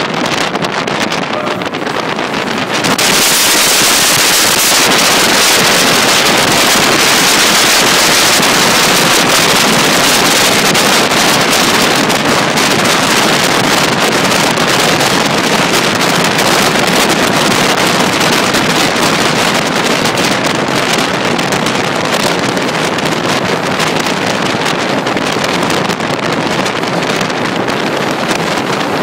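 Loud, steady rushing of a moving passenger train, heard from a carriage with air buffeting the microphone. The noise grows louder and hissier about three seconds in, then holds.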